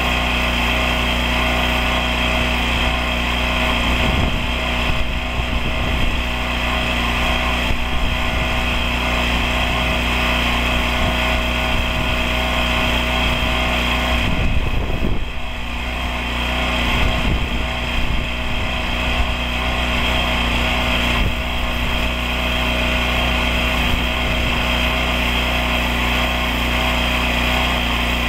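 Engine-driven pressure washer running steadily, with the water jet hissing against a rendered house wall. The sound is briefly quieter about halfway through.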